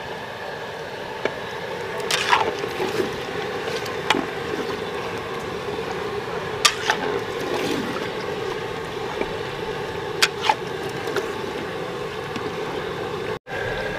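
Large pot of chicken korma being stirred with a metal ladle: the thick gravy sloshes against a steady background hiss, with about five sharp clicks of the ladle striking the pot.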